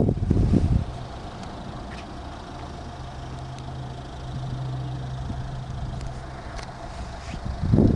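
Steady low hum of road-vehicle engines on the move, with gusts of wind noise on the microphone in the first second and again near the end.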